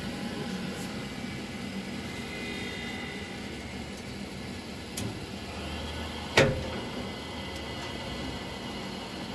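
Alarko Aldens condensing combi boiler running after start-up, its fan and burner giving a steady hum. A light click about five seconds in and a sharper knock with a short ring about a second and a half later.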